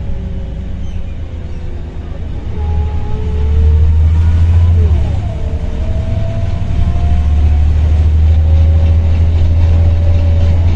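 Volvo B7RLE bus pulling away and accelerating with its ZF automatic gearbox, heard from inside the passenger saloon: a deep engine rumble under a loud gearbox whine. The whine climbs in pitch, drops back at a gear change about five seconds in, then climbs again.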